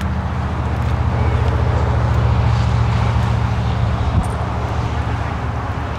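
Low engine rumble that swells about a second in and eases off after about four seconds, with a single short knock near its peak.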